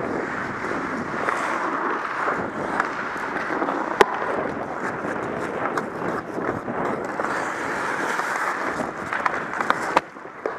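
Ice hockey skate blades scraping and carving on rink ice, with scattered stick clicks. A sharp knock comes about four seconds in and another near the end.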